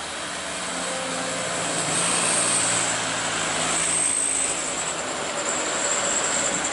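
Heavy Mercedes-Benz Axor truck's diesel engine labouring under load on a steep climb, a steady drone that swells in loudness a couple of seconds in, with a thin high whine above it. The truck is losing power on the grade.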